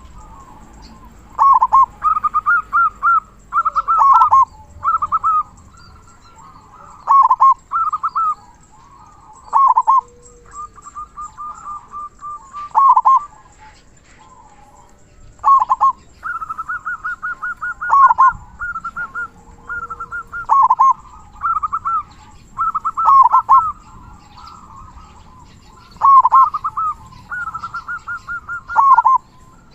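Zebra dove (perkutut) cooing over and over: quick runs of short staccato notes, each phrase closing on a louder, deep downward 'kung' note, with brief pauses between phrases.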